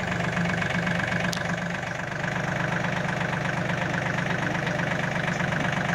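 John Deere 2520 compact tractor's three-cylinder diesel engine running steadily at low revs as the tractor is driven off a trailer.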